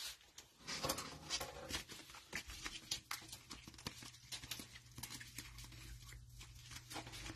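Clear rigid plastic card holders with trading cards inside clicking and tapping against each other as gloved hands gather and shuffle through a stack. The clicks are faint and irregular.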